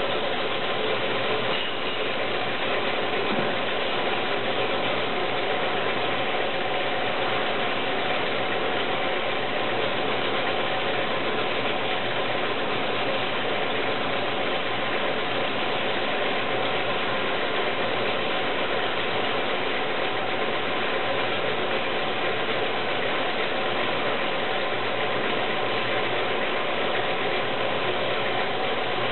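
Circular screening machine running steadily while screening crystalline silica, an even mechanical hum with steady tones that does not change as the flow of powder through it thins and stops.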